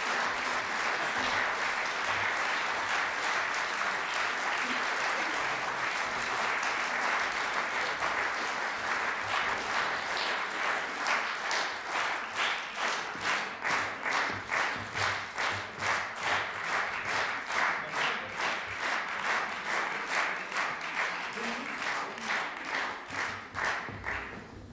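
Concert audience applauding. About ten seconds in, the clapping falls into slow unison, about two claps a second: rhythmic clapping calling for an encore.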